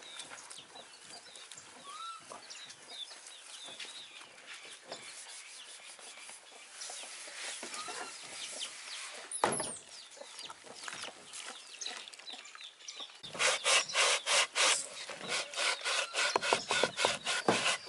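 A scouring pad scrubbing dishes and a plastic container in a washing basin. From about two-thirds of the way in there is a quick run of loud rubbing strokes, several a second. Chickens cluck in the background.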